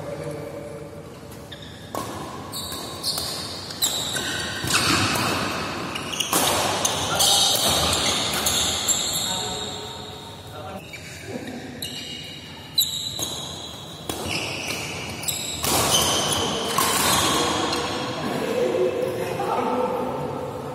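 Badminton doubles rally: rackets striking a shuttlecock in irregular sharp cracks, roughly a second or more apart, with players' footfalls on the court, echoing in a large sports hall.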